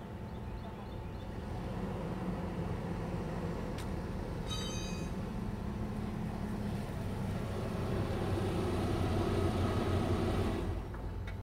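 Steady vehicle rumble that swells louder in the second half and drops off sharply near the end, with a brief high chirp about four and a half seconds in.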